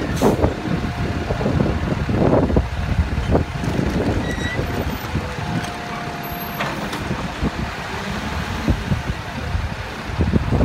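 Diesel Peterbilt front-loader garbage truck's engine running steadily while a steel dumpster is wheeled along the road, with repeated clunks and knocks.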